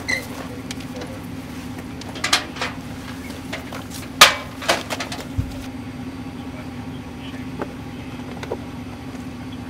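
Sharp metallic clanks and knocks as the side compartment of an animal control truck is opened and a plastic pet carrier is handled, the loudest about four seconds in, over a steady hum.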